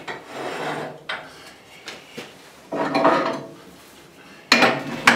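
Irregular metal clanks and scrapes as the wood lathe's cast-iron fittings are adjusted by hand with tools, about six knocks with the two loudest near the end.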